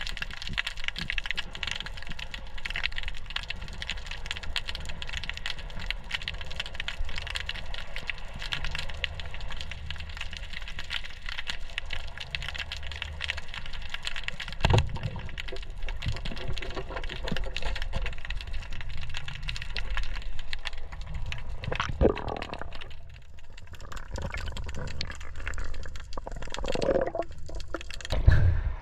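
Underwater ambience of dense, steady crackling clicks over a low rumble. About halfway through comes a single sharp thump: the speargun fired at a rock hind grouper. A second, smaller knock follows some seconds later.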